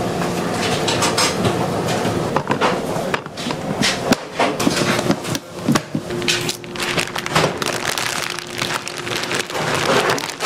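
Kitchen work: repeated sharp knocks and clinks of utensils against a work surface over a steady background of kitchen noise. A steady hum runs through from about halfway to near the end.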